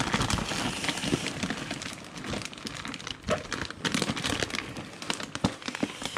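Plastic fish transport bags crinkling and rustling as they are handled and unpacked, with many irregular crackles and small clicks.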